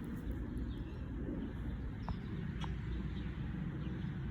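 Steady low outdoor rumble with a few faint, short bird chirps, two of them a little after halfway.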